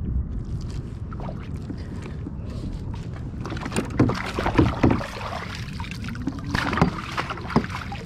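Water sloshing against a plastic fishing kayak's hull, with a cluster of knocks and splashes about four to five seconds in and a few more near the end as a lingcod is handled over the side.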